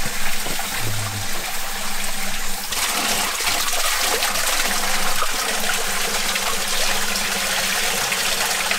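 Mountain spring water gushing out of the rock and splashing onto the stones below, a steady rushing that fills a plastic dipper held under the flow. It grows louder from about three seconds in.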